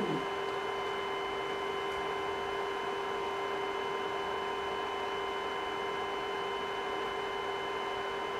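Steady electrical hum and hiss of a running ultrasound scanner, several high steady tones held without change.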